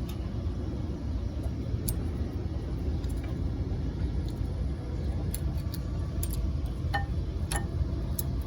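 A few light metallic clicks as new brake pads and their retaining clips are seated in a front disc-brake caliper bracket, over a steady low rumble.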